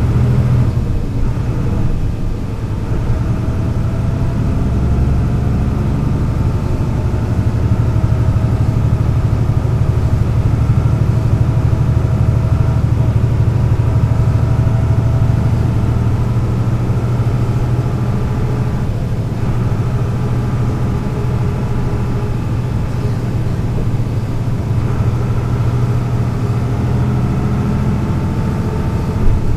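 MAN NL 202 city bus's diesel engine running steadily through its Renk gearbox, with a faint whine above the deep engine note. A brief knock near the end.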